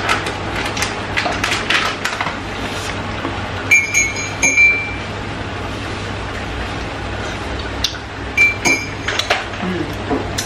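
Kitchen utensils clinking: two short ringing metal clinks about four seconds in and two more near the end, with light knocks and scrapes at the start. A steady low hum runs underneath.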